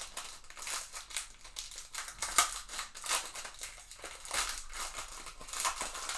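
Foil trading-card pack wrapper (Panini Contenders Baseball) being torn open and peeled back by hand: quick, irregular crinkling and crackling, with one louder snap about halfway through.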